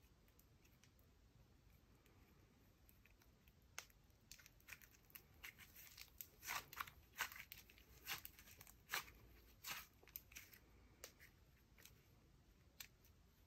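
Faint crackles and pops of memory dough slime being stretched and squeezed by hand, coming thickest over a few seconds in the middle.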